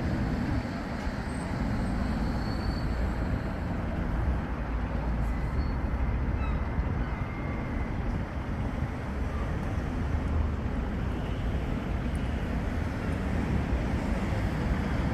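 Bombardier Flexity 2 tram running in on street track and slowing to a stop, over a steady low outdoor rumble of traffic. A faint high whine comes in about halfway through as it slows.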